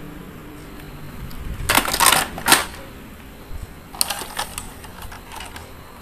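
Hard plastic toy buses clicking and clattering as they are handled and set down, with a cluster of knocks about two seconds in and lighter clicks around four seconds in.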